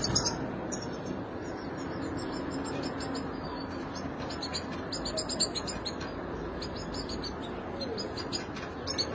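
European goldfinches calling: short, high, downward-slurred chirps scattered throughout, coming thicker near the end, over a steady background hiss.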